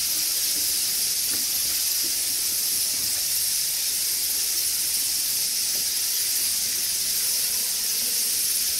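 A steady, high-pitched hiss that does not change, with no distinct calls or clicks in it.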